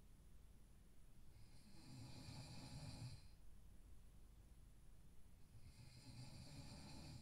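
A sleeping person snoring faintly: two long snores, each about two seconds long, spaced about four seconds apart.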